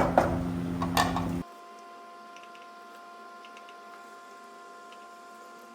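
A utensil knocks and scrapes against a cooking pot as shredded cabbage is mixed into a duck curry, a few sharp knocks over a steady low hum. After about a second and a half the sound cuts off abruptly, leaving only a faint steady hum.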